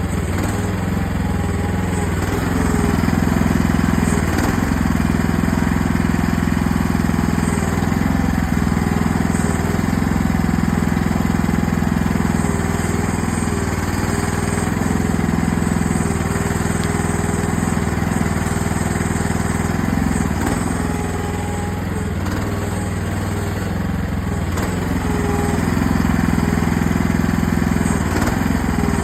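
AGT mini excavator's small engine running steadily under digging load, its level rising and easing a little as the hydraulics work.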